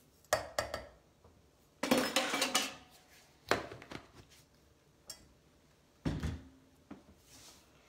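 Kitchen handling noises: a plastic measuring cup tapped over a stainless saucepan and the lid handled on a sugar canister. They come as a handful of separate knocks and clinks, the loudest a longer rattle about two seconds in.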